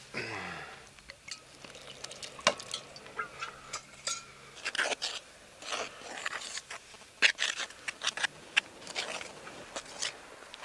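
Bread dough (flour, yeast, oil and water) being mixed by hand in an aluminium pot: a run of short, irregular wet scrapes and squishes. A brief cry falling in pitch comes right at the start.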